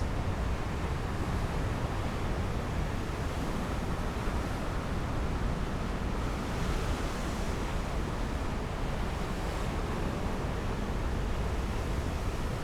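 Steady wind rumbling on the microphone over the wash of sea surf, swelling briefly about six seconds in.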